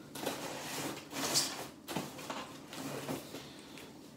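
Rummaging in a cardboard box of beer cans: cardboard rustling and scraping as a can is slid out from between the box's cardboard dividers, with a few light knocks.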